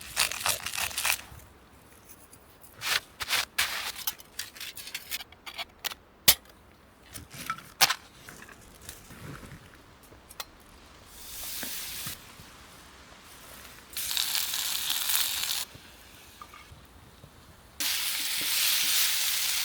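Pepper steak frying in a hot pan: a hissing sizzle heard in several stretches of a few seconds, each starting and stopping abruptly. Before it come scattered clicks, taps and rustles of food being handled.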